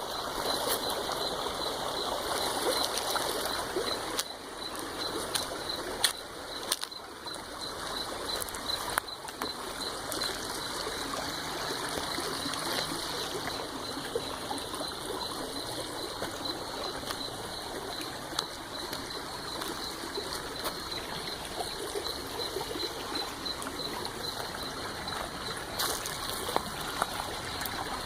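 A stream of running water, flowing steadily, with a few short clicks or knocks here and there and a faint high pulsing tone behind it.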